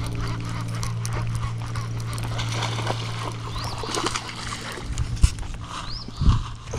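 Baitcasting reel cranking steadily as a hooked largemouth bass is reeled in to the bank, with the fish splashing at the surface. The reeling stops a little over four seconds in, and two thumps follow as the fish is lifted out.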